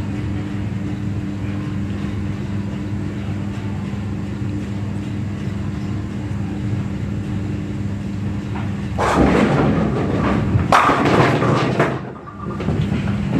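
Steady hum of bowling-alley pinsetter machinery. About nine seconds in comes a loud crash and clatter lasting a few seconds: a bowling ball hitting tenpins on a string pinsetter lane, the pins falling on their strings.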